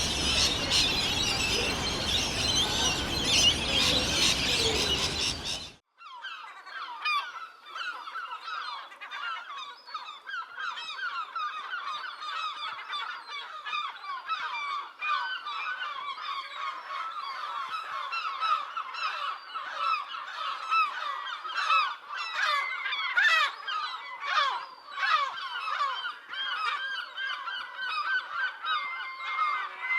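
For the first six seconds a different, hissy bird recording plays, then it cuts off abruptly. A large flock of geese follows, honking continuously with many calls overlapping.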